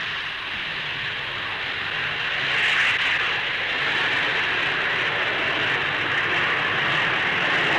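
Jet engines of a de Havilland Comet 4B airliner, four Rolls-Royce Avon turbojets, running at takeoff power: a steady hissing rush that swells slightly about three seconds in.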